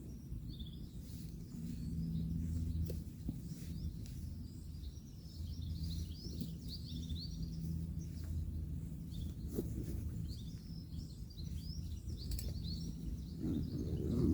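Small birds chirping over a steady low hum of distant road traffic, with a few faint clicks and a louder low rustle near the end.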